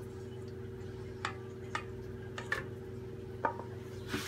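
Wooden butter paddle tapping and scraping against a stainless-steel stand-mixer bowl while freshly churned butter is scooped out of the buttermilk: about six short, separate clicks.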